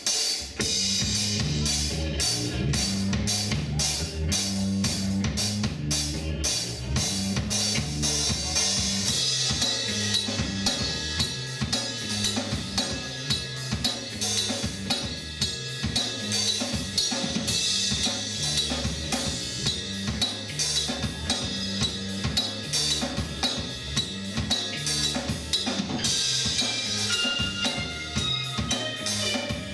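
Live rock band playing: a drum kit with bass drum and snare keeping a steady beat under electric guitars.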